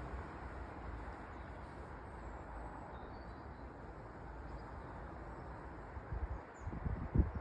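Outdoor ambience: a steady rumbling hiss with a few faint bird chirps, and a cluster of low bumps near the end, like wind buffeting the microphone.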